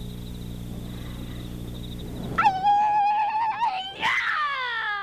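Horse whinnying about halfway in: a high call held level for over a second, then a second call that falls steadily in pitch.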